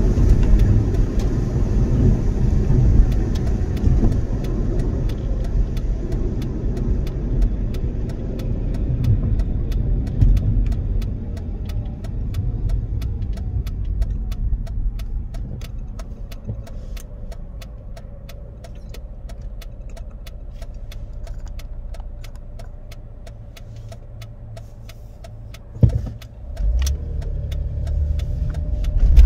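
Car road and engine noise heard from inside the cabin while driving at highway speed: a steady low rumble that eases off in the middle and rises again near the end, with one sharp knock shortly before it rises.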